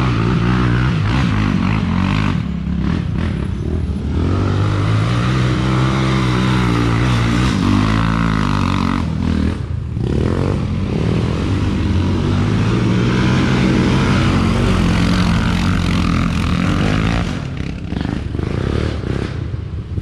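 ATV engine running under way, its revs rising and falling as the throttle is worked. It eases off briefly about ten seconds in and drops back near the end.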